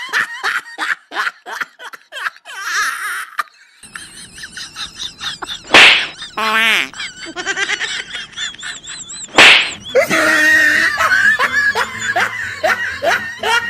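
Men laughing hard in quick repeated bursts. Two sharp smack-like hits come about six and nine and a half seconds in, with a short wobbling tone between them.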